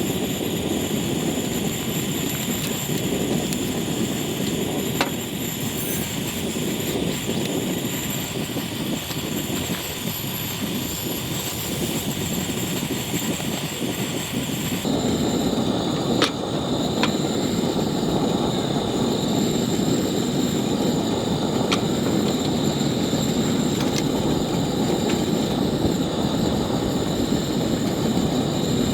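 Steady rushing of strong seaside wind and surf, with a few faint clicks; the sound shifts abruptly about halfway through, becoming a little louder.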